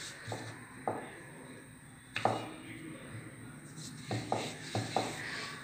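Irregular wooden knocks and thumps from a rolling pin and a round wooden chapati board as wheat dough is rolled out, several close together near the end.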